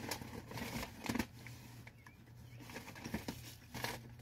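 Faint eating and food-handling noises: irregular small clicks and rustles, over a low steady hum.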